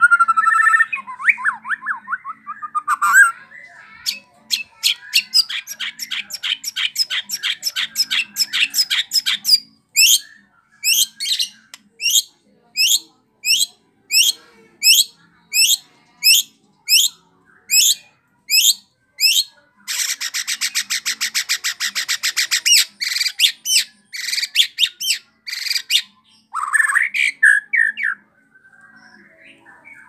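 White-rumped shama (murai batu) singing a long, varied song. It opens with warbles, then a fast rattle of repeated notes, a long series of falling whistles about two a second, and a dense buzzing trill, and ends with a lower warble about four seconds before the end.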